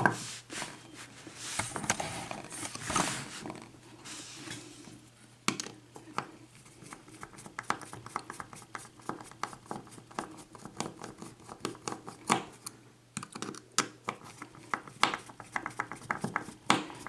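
Light metal clicks, taps and scrapes of an Assa oval lock cylinder being handled and worked apart with tools after being picked open. The clicking comes thicker and faster in the second half.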